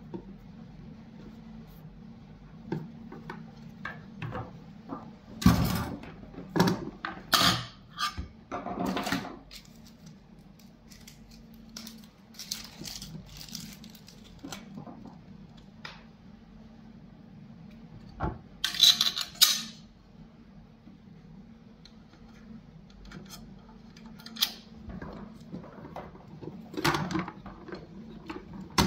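Handling of a stainless-steel pool light fixture and its cable: scattered metal clinks, knocks and rubbing. There is a louder cluster of clatter about six to nine seconds in, a brief scraping hiss near twenty seconds, and a steady low hum underneath.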